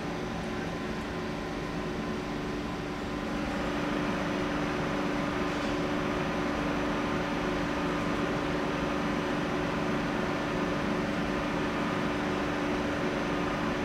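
Electric Railjet train humming steadily, with several fixed tones from its electrical equipment and cooling fans, growing louder about three and a half seconds in.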